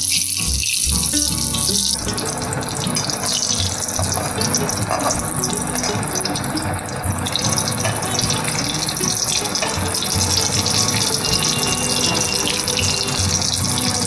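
Hot oil sizzling and bubbling steadily as peanut-coated potato fritters deep-fry in a wok. The sizzle grows fuller about two seconds in, with background music under it.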